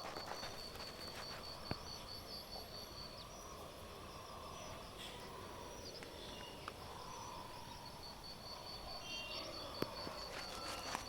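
An insect chirping in a high, even pulsed trill of about five pulses a second. It stops about three seconds in and starts again past the middle, over a steady background hiss with a couple of sharp clicks.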